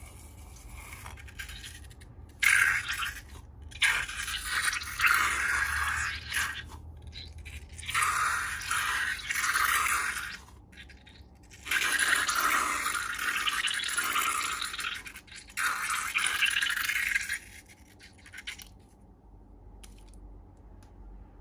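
Scraping and rubbing sounds in several bursts of one to three seconds each, then dying away near the end.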